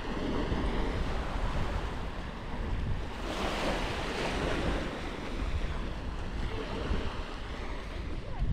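Surf washing onto the beach, with wind rumbling on the microphone; the wash swells louder about three seconds in.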